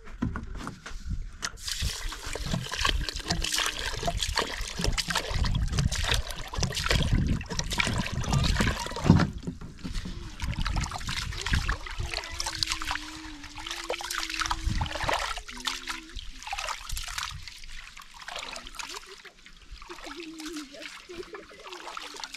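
Water splashing and trickling in an irregular, uneven run.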